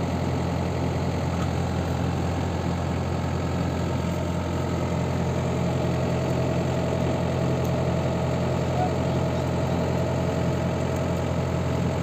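Diesel farm-machine engine idling steadily, with an even low-pitched hum that does not change.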